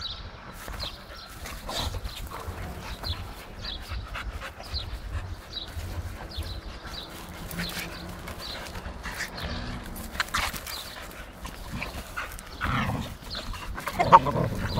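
Two young dogs playing tug-of-war over a rubber tyre: panting and scuffling throughout, with a short, louder cry from one dog near the end.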